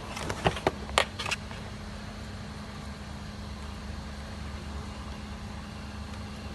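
A handful of sharp clicks and knocks in the first second and a half, the loudest about a second in, then a steady low mechanical hum.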